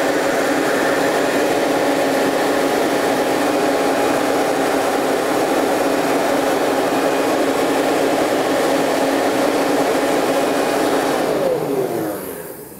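Electric leaf blower running at full speed, a steady whine over a rush of air. Near the end it is switched off and the motor winds down, its pitch falling away.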